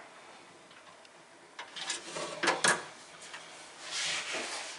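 Small hand-work sounds on door hardware: a quick run of clicks and knocks about halfway through, then a short scrape near the end, as a mark is transferred for the door striker.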